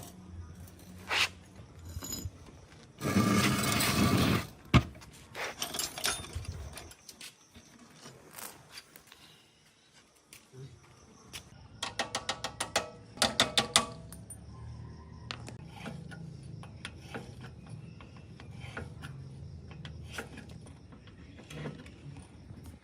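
Metal engine parts and hand tools being handled: scattered clinks, knocks and rattles, with a brief noisy rush about three seconds in and a quick run of about a dozen clicks around twelve seconds in.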